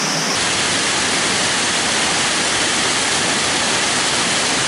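Steady rush of a wide waterfall pouring down stepped rock ledges, its tone shifting abruptly just after the start.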